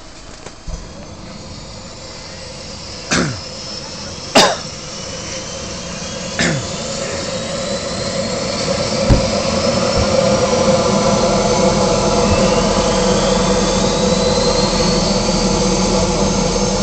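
Agusta-Bell 412 helicopter's turboshaft engines spooling up on the pad as the main rotor runs up, a whine slowly rising in pitch and the whole sound growing steadily louder. Three short, loud sounds, each falling in pitch, stand out in the first seven seconds.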